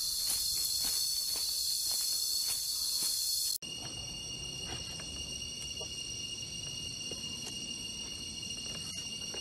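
Steady high-pitched chorus of forest insects with a rapid pulsing in it. About three and a half seconds in it cuts off abruptly, and a fainter, steadier high insect drone follows.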